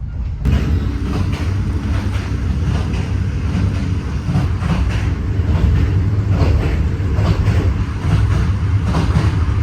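Steady low rumble of a moving Standard Gauge Railway passenger train heard from inside the coach, with faint small knocks and rattles.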